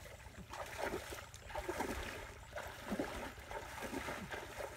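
Shallow muddy water splashing and sloshing with each step of a person wading through it, about two splashes a second.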